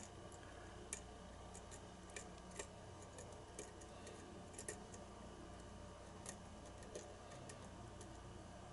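Faint, irregular small clicks of a lock pick and tension wrench working the pins inside an ASSA Abloy challenge lock cylinder, about one or two clicks a second.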